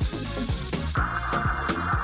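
Background electronic music with a steady beat that moves into a new section about a second in.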